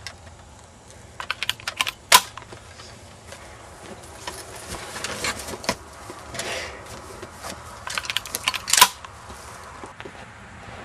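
Quick clusters of sharp mechanical clicks and knocks, loudest about two seconds in and again near nine seconds, with rustling between.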